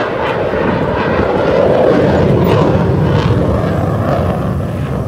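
Military jet aircraft flying past at an airshow: a loud rumble that builds to its loudest about two seconds in, then slowly eases.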